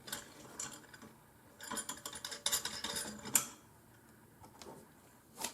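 Light clicking and tapping of small metal parts and hardware being handled during assembly of an aluminum spool-holder frame, a run of clicks in the middle with one sharper click about three and a half seconds in.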